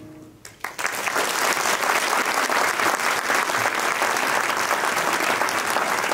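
The band's final held chord dies away, and about half a second in the audience breaks into steady applause.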